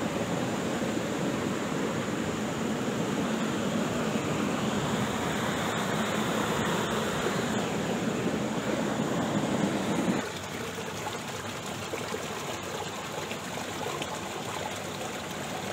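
Steady rush of flowing river water, louder for about the first ten seconds and then dropping suddenly to a quieter, steady flow.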